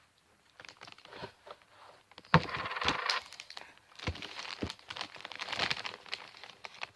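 Handling noise from a plastic fidget cube being pried apart. Scattered clicks lead to a sharp knock about two seconds in, followed by scraping and crinkling with more small clicks and knocks.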